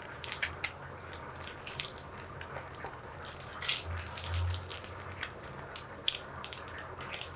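Faint squishes and small crackles of cream cheese frosting being squeezed from a plastic piping bag onto a cupcake in a paper liner, with a soft low bump about four seconds in.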